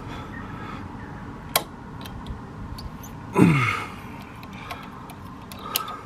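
Sharp metallic clicks, one about one and a half seconds in and another near the end, as the rear shock linkage arm is nudged into line with the shock's lower mount. A short falling grunt about halfway through is the loudest sound.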